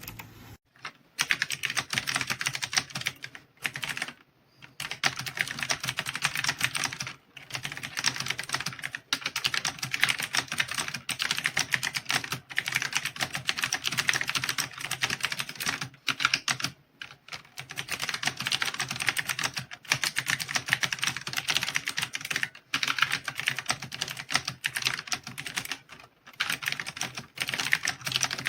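Fast, continuous typing on an AULA F2088 typewriter-style mechanical keyboard with blue switches: dense clicky keystrokes, with brief pauses every few seconds.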